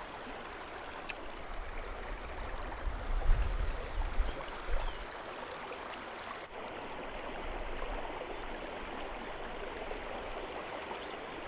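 Steady rush of river water flowing past the bank, with a click about a second in and some low rumbles and bumps between about two and five seconds in.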